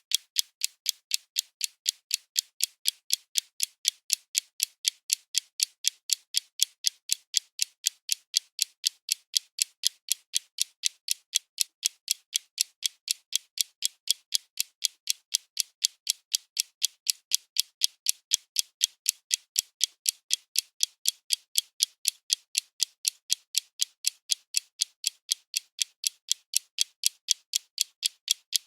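Clock ticking: crisp, evenly spaced ticks, several a second, with no pause or change.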